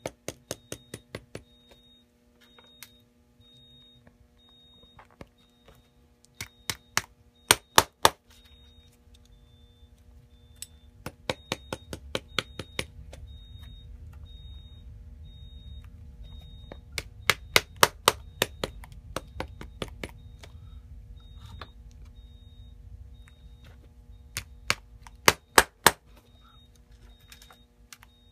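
Small hammer tapping on the sole of a boot in quick runs of sharp strikes, five runs with pauses between them, over a faint steady hum.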